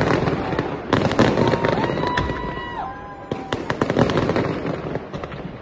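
Fireworks display going off in volleys of dense crackling and popping, with a fresh loud volley about a second in. Around the middle a whistle-like tone holds for about a second and a half, then steps down in pitch. The crackle thins toward the end.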